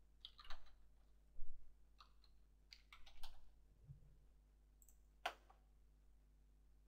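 Computer keyboard typing in short bursts of keystrokes as a username and password are entered, then a single mouse click about five seconds in.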